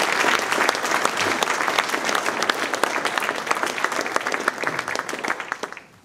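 Audience applauding, many hands clapping steadily, then dying away just before the end.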